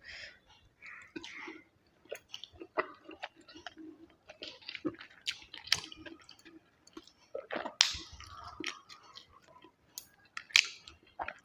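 Close-miked chewing of mutton curry: irregular wet smacking and small clicks of the mouth, with a few louder smacks.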